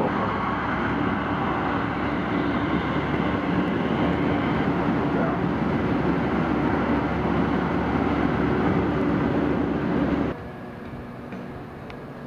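Steady running noise inside a moving light-rail train: a continuous rumble and rolling rush. It cuts off suddenly about ten seconds in, leaving a much quieter background with a few faint steady tones.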